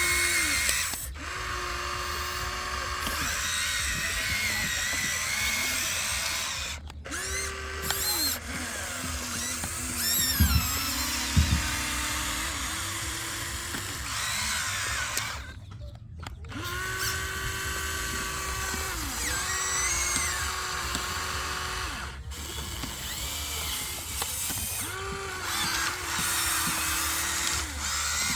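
A small electric motor whines in repeated short runs of one to three seconds, starting and stopping again and again. There are two brief low thumps about ten seconds in.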